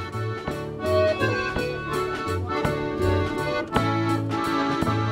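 A small band playing live, with the accordion leading over electric guitar, bass notes and drums keeping a steady beat.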